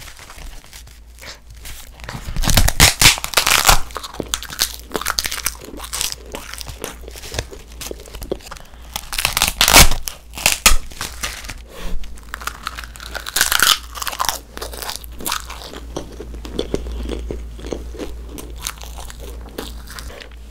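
Edible coloured paper sheets being bitten and chewed right at the microphones: crisp crackling bites in clusters, the loudest about ten seconds in, with softer chewing near the end.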